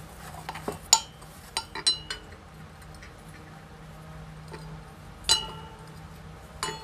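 Metal clinks as the oily end covers of a cooler motor are handled and wiped with a rag: a few light clinks in the first two seconds, then a sharper ringing clink about five seconds in and another near the end.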